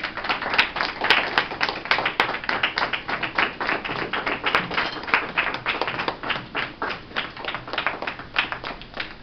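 A small group of people applauding, many separate hand claps overlapping, fullest in the first few seconds and thinning toward the end.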